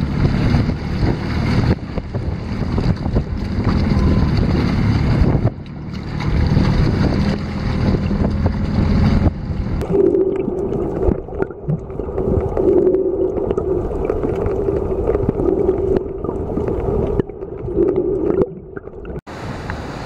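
Wind rumbling on the microphone for the first half. About ten seconds in the sound turns muffled and underwater, with a steady low hum and gurgling from a camera held under the sea.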